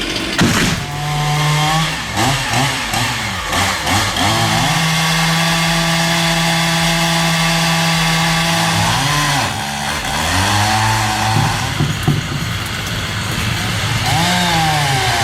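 Chainsaw engine revving up and down several times, then holding at steady full throttle for about four seconds in the middle, as when cutting. A sharp knock sounds near the start.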